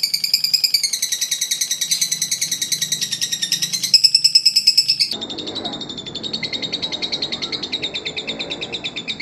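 Lovebirds giving the long 'ngekek' chatter: a continuous run of rapid high-pitched notes, about ten a second. The pitch dips a little between about one and four seconds in, and about five seconds in the sound switches abruptly to a duller recording of the same kind of chattering from another bird.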